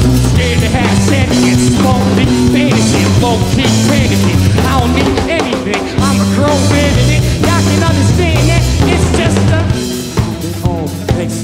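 Live rock band playing loud: electric guitar with bending, wavering notes over bass and a drum kit with snare and kick. The band thins out slightly near the end.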